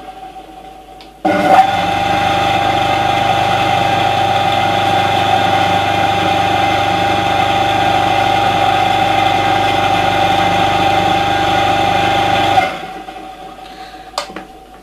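A three-phase induction motor (1100 W, 1400 rpm) runs on single-phase 220 V through a 60 µF run capacitor, with no start capacitor. It is still coasting down at first, starts abruptly about a second in, and runs steadily with a hum and a fixed whine. Near the end it is switched off and spins down, followed by a click.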